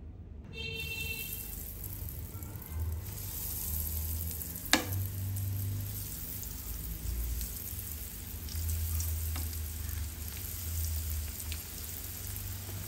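Breadcrumb-coated prawns sizzling in hot oil in a frying pan as they are added in a batch, the frying hiss building as more pieces go in. There is a sharp click about five seconds in, over a low hum.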